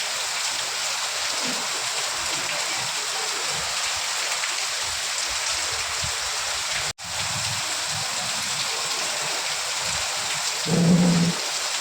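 Steady rain falling, an even hiss. About seven seconds in the sound cuts out for a split second and comes straight back, and shortly before the end a brief low, humming burst stands out as the loudest moment.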